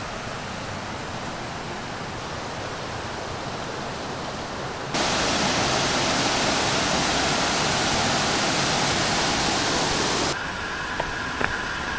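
Rushing water of a rocky mountain stream and waterfall, a steady hiss of water over stone. It jumps abruptly louder about five seconds in and drops back just before the end.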